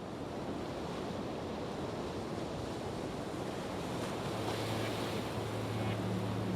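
A steady rushing noise that slowly swells louder, with a low steady hum coming in about four seconds in.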